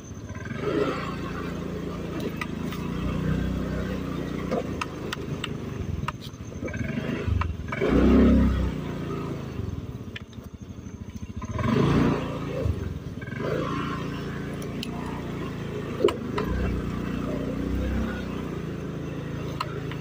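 Automatic scooter engine running under load on a rough dirt forest trail, revving up in strong surges about 8 and 12 seconds in, with a sharp knock near the end.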